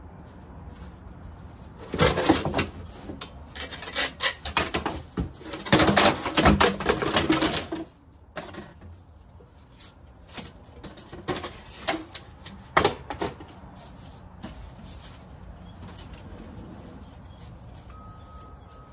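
Clattering and rustling of things being handled and shifted about, in two dense bursts about two and six seconds in, then scattered knocks that die away by about thirteen seconds in.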